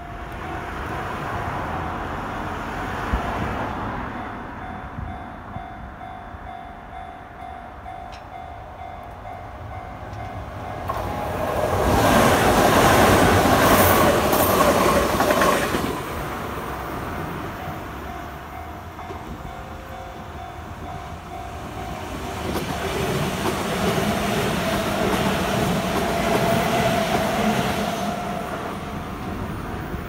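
Japanese level-crossing alarm ringing steadily while a red-and-cream Kintetsu Minami-Osaka Line electric train passes over the crossing. The train is loudest about halfway through, and the sound swells again, less loudly, toward the end.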